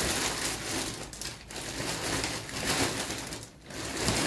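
Packaging rustling and crinkling as things are handled, coming and going unevenly, with a brief lull about three and a half seconds in.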